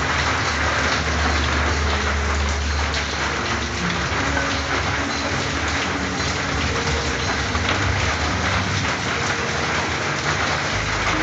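Steady rain falling on a corrugated tin roof, a dense, even hiss of drops. A low rumble of distant thunder sits beneath it for the first few seconds, then fades.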